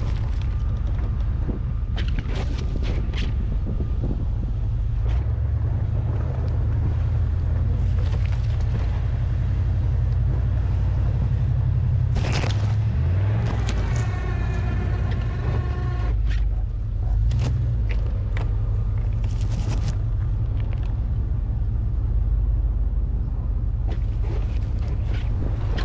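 Ram pickup truck with a snowplow running, a steady low rumble with scattered knocks and scrapes, and a short whine about halfway through.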